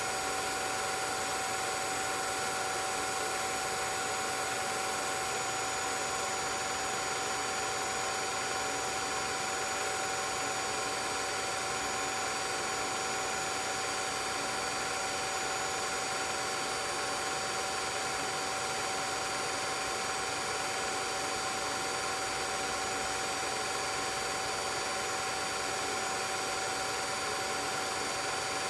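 16mm film projector running: a steady mechanical whir and hiss with a few constant whining tones.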